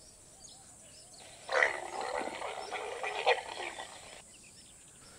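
Indian leopard giving a loud, deep, throaty roar from somewhere among the boulders. The rough, pulsing call starts about a second and a half in and cuts off abruptly a little after four seconds.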